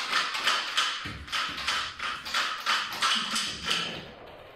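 A fast, steady beat of crisp taps, about four a second, with a few soft low thuds about a second in.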